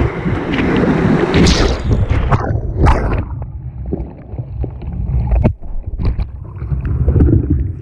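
Whitewater rushing and splashing around a kayak, with wind buffeting the microphone. About three seconds in the sound turns duller for a couple of seconds, broken by sharp splashes and knocks, then the rushing builds again near the end.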